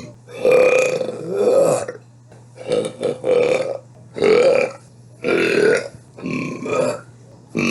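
A woman burping: a string of separate belches one after another, each about half a second to a second and a half long, with short pauses between them.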